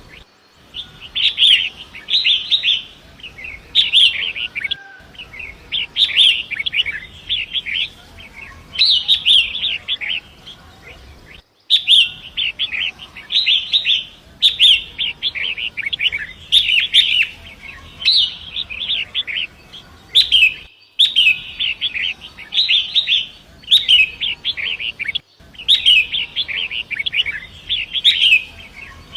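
Long-tailed shrike (pentet) singing: short, harsh, chattering phrases repeated about once a second, over a faint low rush of water. The sound cuts out abruptly for an instant a few times, where the looped recording is joined.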